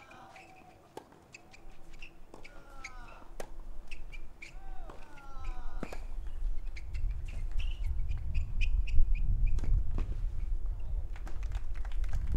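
Tennis rackets striking the ball in a rally on a clay court: sharp pops a second or two apart. Birds chirp in the first half, and a low rumble builds through the second half.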